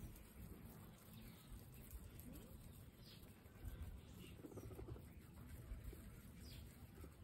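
Guinea pigs munching fresh green grass: faint soft crunching and tearing, with a few faint short high chirps now and then.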